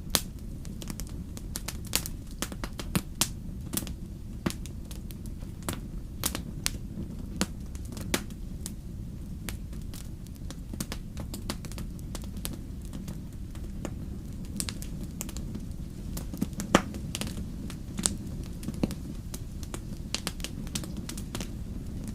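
Campfire burning, with a steady low rumble of the flames and irregular sharp crackles and pops from the wood, one louder pop about two-thirds of the way through.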